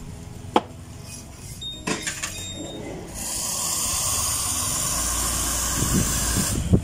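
Espresso machine's steam wand opened with a loud, steady hiss of steam starting about three seconds in and cutting off suddenly near the end. Two light knocks of cups or utensils come before it.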